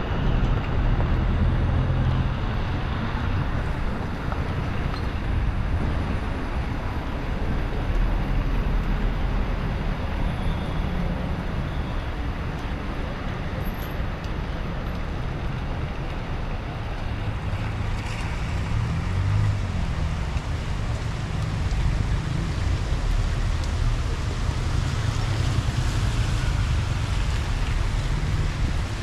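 Steady wash of rain and traffic noise on a wet city street, with wind rumbling on the microphone.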